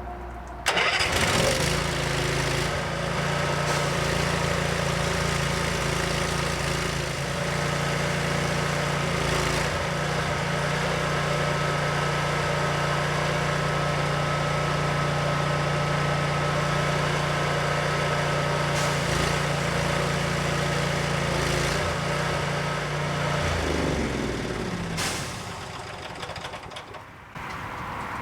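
Landa hot-water skid pressure washer's engine and pump running steadily under load during a test run after an unloader adjustment. Near the end the pitch slides down and it quietens, as the engine drops its speed.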